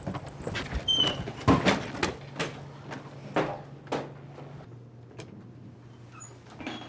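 A door being worked open: a string of irregular knocks and clicks over the first few seconds, under a low steady hum.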